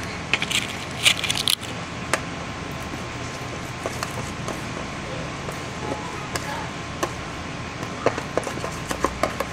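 Plastic spoon stirring sticky, freshly activated slime in a plastic tub: irregular sharp clicks and scrapes of spoon on plastic, a quick cluster in the first second and a half and another near the end, over a steady low background noise.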